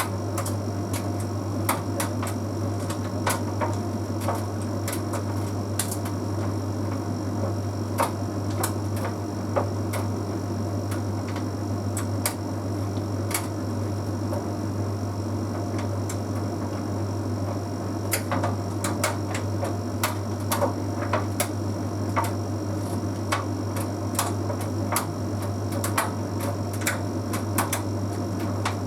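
Bosch Series 6 heat pump tumble dryer running mid-cycle: a steady low hum from the drum motor and heat pump compressor, with irregular light clicks and taps as the synthetic load tumbles in the drum.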